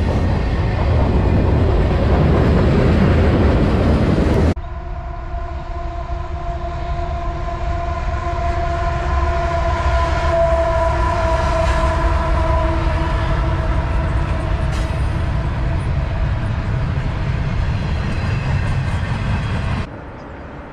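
Loaded freight train of boxcars rolling past close by, a loud steady rumble of wheels on rail. About four and a half seconds in this gives way to a CSX diesel locomotive leading a double-stack intermodal train, sounding its air horn in one long chord over the lower rumble of the train.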